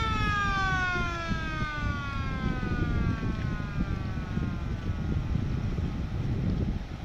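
A siren-like wail that falls slowly and steadily in pitch over about six seconds, fading near the end, over a continuous low rumble.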